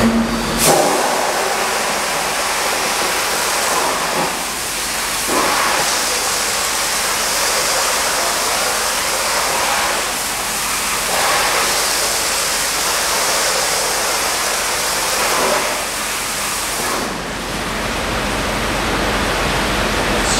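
BETE HydroWhirl Orbitor rotary jet tank-cleaning nozzle spraying cold water at about 45 psi against the inside of a tank: a steady rush of water that swells briefly every few seconds as the rotating jets sweep round.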